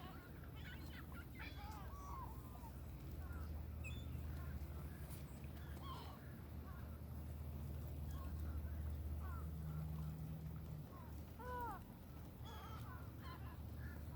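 Birds calling: many short, scattered calls over a steady low hum.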